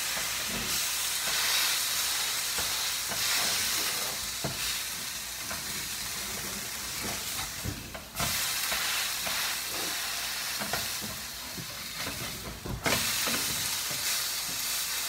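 Pork cutlets sizzling in a frying pan, with scattered light taps of a utensil against the pan. The sizzle drops out for a moment twice, about eight and thirteen seconds in.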